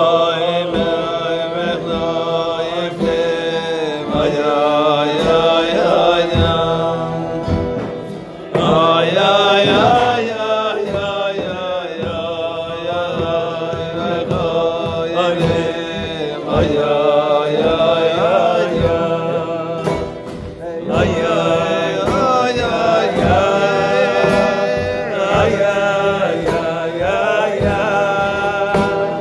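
Group of voices singing a melody together over a light steady beat, pausing briefly twice between phrases.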